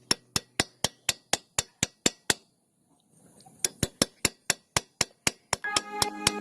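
Background music with a steady ticking beat, about four ticks a second. It drops out briefly near the middle, then returns, and sustained chords come in near the end.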